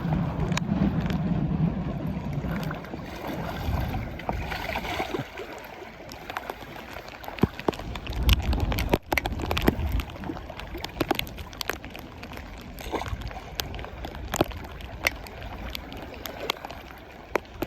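Water splashing and sloshing, likely a hooked fish being played and landed, with many scattered sharp clicks and knocks. Low rumbles come early and again about eight seconds in.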